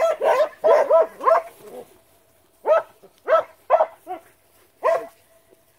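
A young dog barking repeatedly: a quick run of four or five short barks, a pause of about a second, then four more and a single bark near the end.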